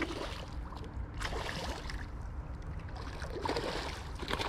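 A hooked carp splashing at the surface near the bank, in a few bursts, over the steady rush of a flooded creek running.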